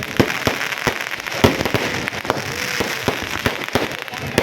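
Firecrackers going off in a rapid, irregular string of sharp pops and cracks.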